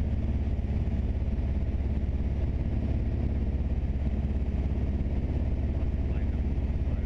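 Mooney single-engine plane's piston engine and propeller droning steadily in flight, heard from inside the cockpit.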